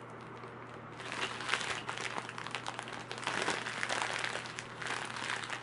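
Soft, irregular crinkling and rustling of plastic with small clicks, as squishies and their packaging are handled.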